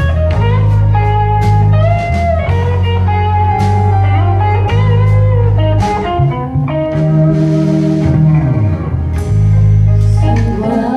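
Live blues band playing an instrumental passage: an electric guitar lead with notes that bend up and down, over a walking bass line and a drum kit keeping a steady beat.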